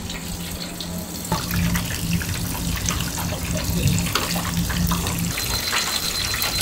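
Hot oil sizzling and crackling in a deep fryer around breaded shrimp, louder and busier from about a second in, over a steady low hum.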